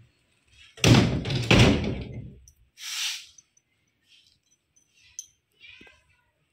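Two loud bangs about three quarters of a second apart, each ringing on briefly, then a short hiss and a few faint taps.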